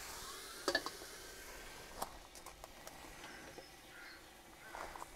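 Metal lid of a domed gas barbecue set back down with a short cluster of clanks, the frying beneath it now a faint sizzle. A few light clicks and taps follow.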